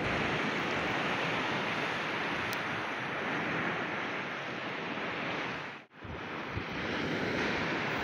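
Sea surf washing on the shore, a steady hiss of water with wind on the microphone. The sound cuts out for a moment about six seconds in.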